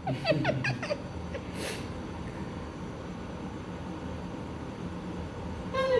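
Faint voices in the first second, then a steady low background hum, with a brief soft hiss about a second and a half in.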